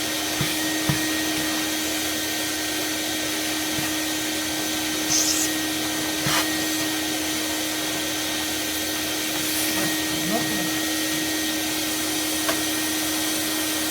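Vacuum cleaner running steadily with a constant hum, sucking soot out of a cast-iron boiler's flue passages during cleaning, with a few light knocks.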